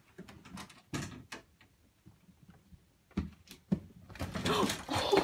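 A cat pawing at a closet's linen shelves and pulling a crocheted blanket down: scattered light knocks and rustles, then a louder, busier stretch of noise near the end.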